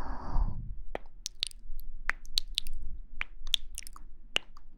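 A breath blown close onto the microphone fades out in the first second. Then comes a run of about fifteen sharp, irregularly spaced clicks and pops right at the microphone.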